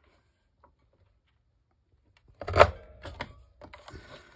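A tag-shaped craft paper punch pressed down, cutting through the paper with one loud clack about two and a half seconds in, followed by a few lighter clicks.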